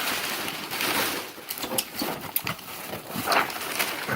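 Rustling of cardboard and packing, then a run of irregular knocks and taps as boxes of ammunition are pulled out of a shipping box and handled.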